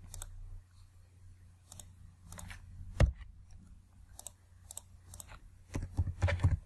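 Computer keyboard keystrokes and mouse clicks as a username and password are typed into a web form: scattered sharp clicks, one sharper click about three seconds in, and a quick run of keystrokes near the end.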